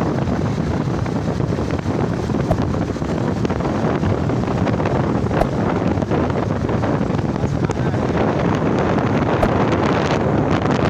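Steady wind buffeting the microphone while riding along a road, over the running noise of the vehicle.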